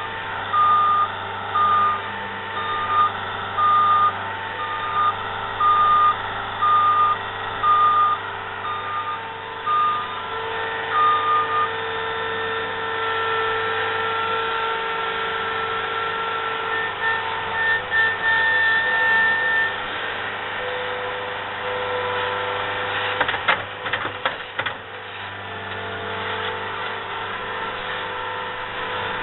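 Skid steer backing up: its reversing alarm beeps steadily, a little over once a second, for about the first twelve seconds, over the steady running of its engine. The engine and hydraulic whine carry on after the beeping stops, with a few sharp knocks about two-thirds of the way through.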